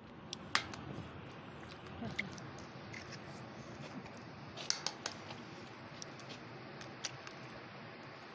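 Eggs being cracked into a glass bowl: a few sharp taps and shell cracks spread through, over a steady background hiss.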